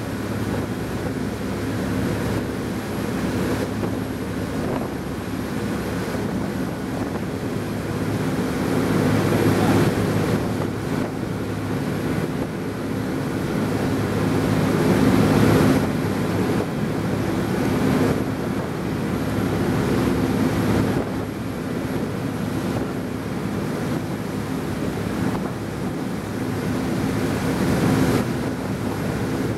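Motorboat engine running at steady cruising speed, a low even drone under the rush of the wake and wind buffeting the microphone; the noise swells a little twice.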